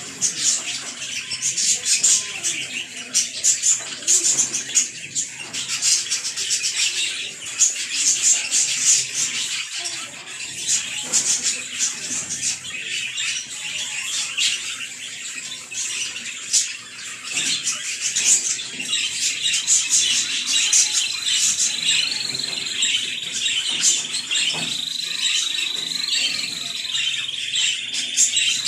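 Budgerigars chattering: rapid high chirps, clicks and squawks. From about two-thirds of the way in, a thin wavering high whistle runs on beneath the chatter.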